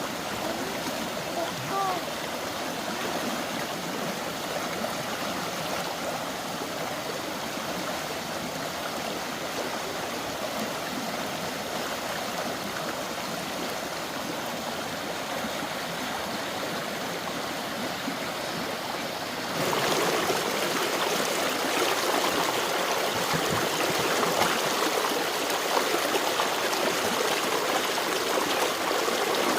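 Water flowing steadily, like a stream; about two-thirds of the way through it suddenly gets louder and brighter.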